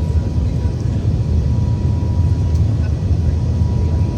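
Steady low rumble of an Airbus A380's engines and rushing air, heard inside the passenger cabin.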